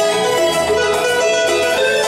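Live cumbia band playing an instrumental passage, an electric guitar carrying a stepping melody over bass and keyboard.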